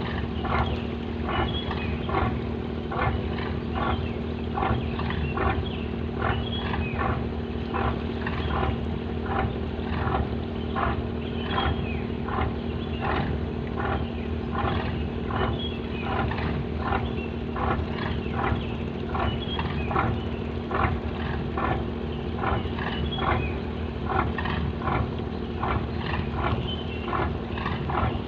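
Fishing boat's engine running steadily with a low hum, with a regular clatter about twice a second.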